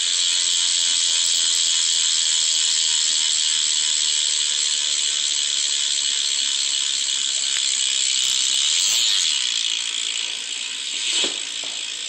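Black Label BMX rear hub freewheeling as the wheel spins: its pawls ratchet so fast that the clicks run together into a loud, even buzz. The buzz grows quieter near the end.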